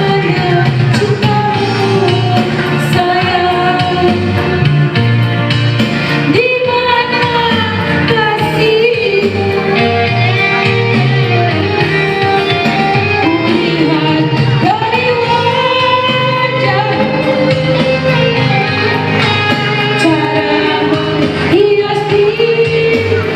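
A high voice singing a melody over backing music with a steady beat. The notes are long and held, and several slide up into pitch.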